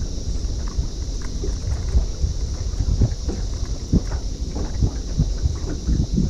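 Wind buffeting the microphone in a small boat, with small waves slapping and knocking irregularly against the hull and a steady high hiss in the background.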